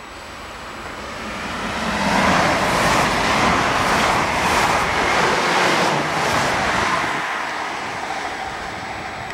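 ICE high-speed electric train passing at speed: a rush of air and rolling noise that builds over about two seconds, holds loud with a few faint ticks in the middle, then slowly fades as it draws away.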